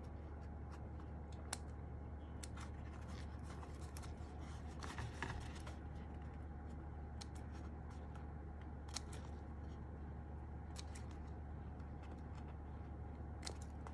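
Faint scattered clicks and rustles of a foam sheet being cut and handled while it is fitted into a mechanical keyboard case, with a short busier patch about five seconds in, over a steady low hum.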